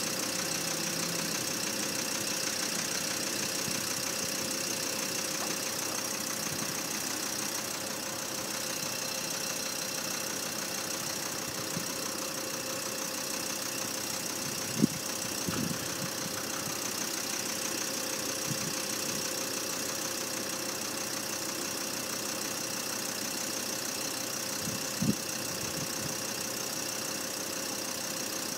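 Steady engine hum, as of an engine idling, with two sharp knocks, one about halfway through and one near the end.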